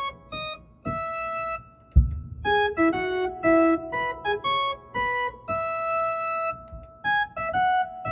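KakaoTalk voice-call ringtone melody played on an organ: phrases of short held notes separated by brief gaps. There is a low thump about two seconds in.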